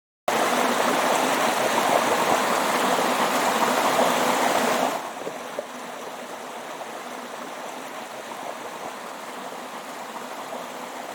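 Rushing water of a waterfall, loud for about five seconds, then cutting to a quieter, steady stretch of running water.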